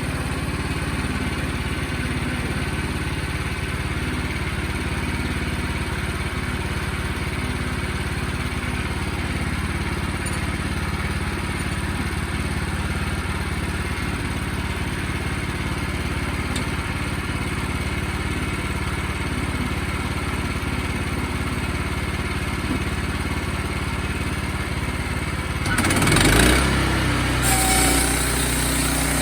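Sawmill engine running steadily, most likely with the saw cutting through the log. Near the end there is a louder, noisy surge and the engine note drops lower.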